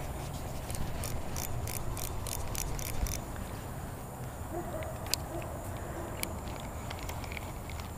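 Spinning reel clicking in a quick run of about four ticks a second for a couple of seconds, then a few single clicks, as it works against a lure snagged on the bottom.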